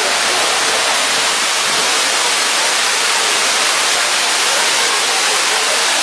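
Large waterfall plunging down a rock face into a pool: a steady, loud rush of falling water.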